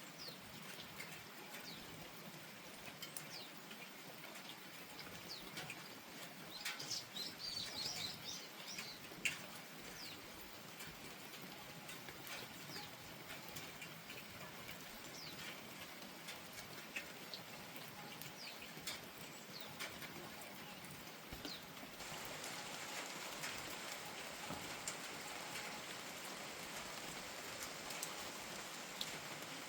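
Steady rain falling, with scattered drops ticking and pattering close by. A small bird chirps briefly about seven seconds in, and the rain grows a little louder about two thirds of the way through.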